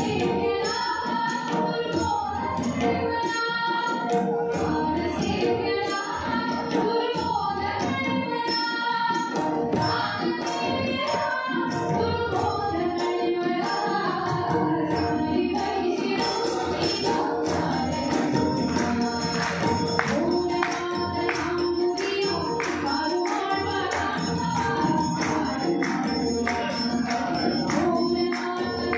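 Live Indian vocal music: a woman singing into a microphone, accompanied by a harmonium, over steady held tones, with percussion keeping an even beat.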